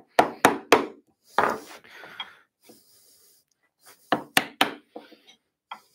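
Round-headed mallet striking a chisel into wood, making stop cuts at the end of a hand-cut mortice. There are three quick blows near the start, one more about a second later, and another run of three about four seconds in.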